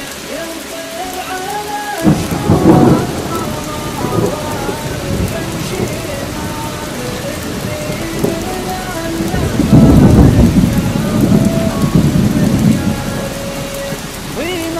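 Steady rain with rolling thunder: a sudden loud rumble about two seconds in and a longer, louder roll from about ten to thirteen seconds, over a slow melody of held notes.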